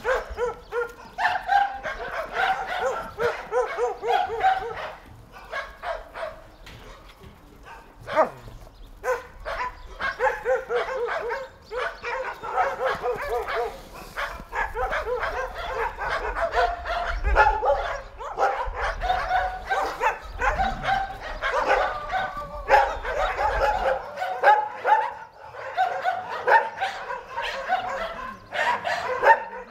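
Many shelter dogs barking at once, overlapping barks with hardly a pause, dropping briefly a few seconds in.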